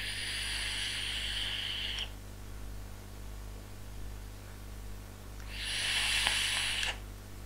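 Two long drags on a vape, air hissing as it is drawn through a rebuildable dripping atomizer (Ystar Freelander RDA) vaped straight off its top cap with no drip tip: one about two seconds long at the start, another about a second and a half long near the end.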